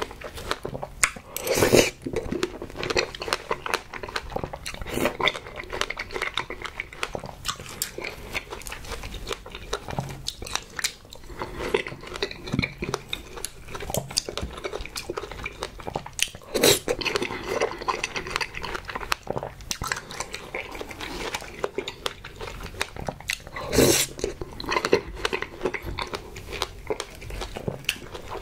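Close-up mouth sounds of chewing and smacking soft strawberries and whipped cream, a dense run of wet clicks. A few louder sharp clicks from the metal fork on the tray.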